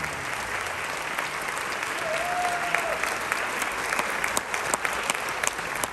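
Audience applauding in a hall, with a few sharp claps standing out near the end and a brief voice calling out about two seconds in.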